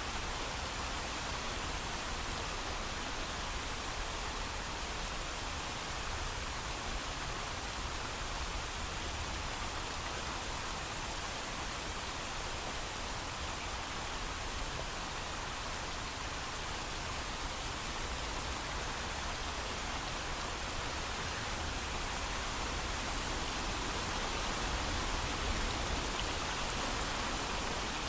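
Heavy rain falling steadily with no thunder: a dense, even hiss with a low rumble beneath, swelling slightly near the end.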